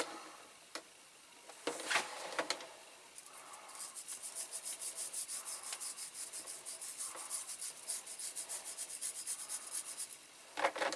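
Fast back-and-forth scrubbing, about eight strokes a second, rubbing caustic-soda-softened paint off a die-cast metal toy car body. It follows a brief scrape about two seconds in.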